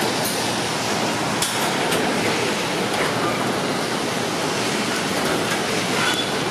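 Fire station's sectional overhead bay door rolling up on its tracks, with a few light clicks in the first two seconds, over a steady rushing background noise.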